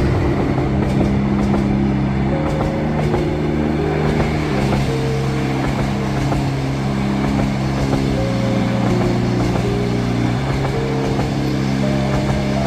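Passing train running on the rails, a steady rumble and rattle of wheels, with a few sharp clicks in the first few seconds. Slow ambient music with long held chords that change every couple of seconds plays over it.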